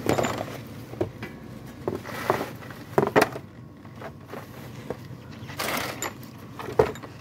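Flat screwdriver prying and scraping at the oil pan joint of a Toyota 2AZ-FE engine to work the pan loose from the block. Irregular metal clicks and knocks, with a longer scrape about five and a half seconds in.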